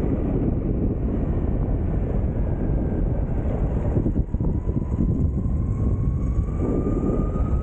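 Wind rushing over the microphone of a moving electric mountain board. From about four seconds in, the thin whine of its belt-driven Flipsky 6384 brushless motors rises slowly in pitch as the board picks up speed.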